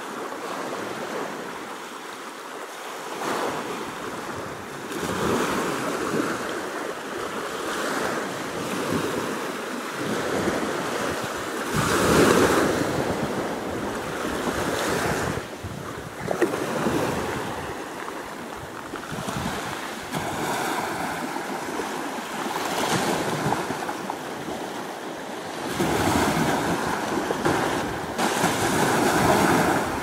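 Small sea waves breaking and washing up a sandy beach, each wash swelling and fading every few seconds, the biggest near the middle and toward the end.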